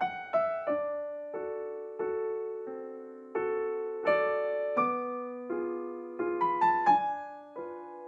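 Slow background piano music: single notes and chords struck about once or twice a second, each one fading away.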